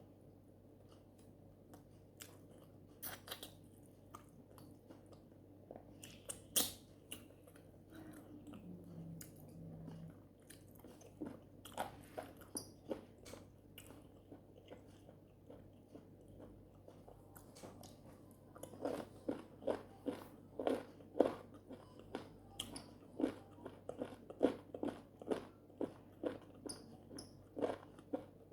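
Close-miked chewing of a mouthful of fufu with palm nut soup: scattered wet mouth clicks at first, then a steady run of chews about two a second from about two-thirds of the way through.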